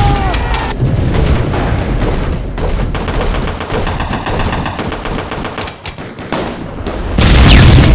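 Battle gunfire: rifle and machine-gun fire in dense, rapid shots, with a steady run of quick machine-gun bursts through the middle. Near the end a loud blast sounds together with a falling whistle.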